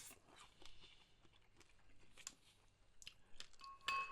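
Faint chewing and crunching of crispy deep-fried pork knuckle, with scattered small mouth clicks and crackles. A brief faint high tone sounds near the end.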